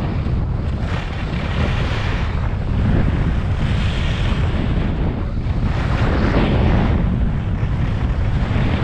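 Wind buffeting the microphone of a skier moving downhill, with the hiss and scrape of skis on packed, hard snow swelling and fading with each turn, about every two seconds.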